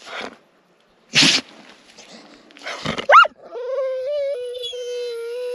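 A wire-haired hunting dog gives a few short breathy huffs, then lifts into a yelp that settles into one long, steady howl. It is whining for attention, a sook.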